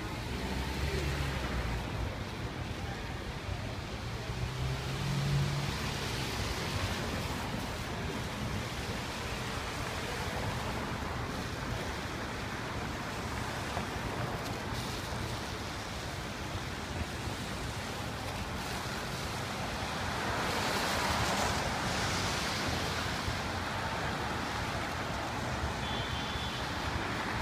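City street traffic on a wet road: a steady hiss of car tyres on wet pavement with engines running, swelling twice as vehicles pass close by.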